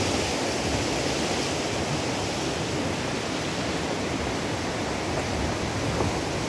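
River rapids rushing over rocks: a steady, even rush of water.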